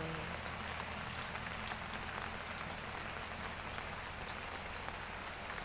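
Heavy rain falling steadily: an even hiss of rain with small scattered drop ticks.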